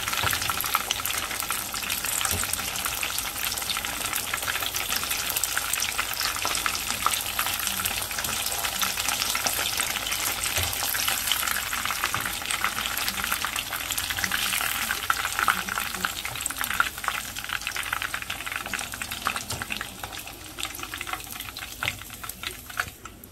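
Breaded chicken fingers deep-frying in hot oil in a pan: a steady crackling sizzle. It gets quieter over the last few seconds as the pieces are lifted out with tongs.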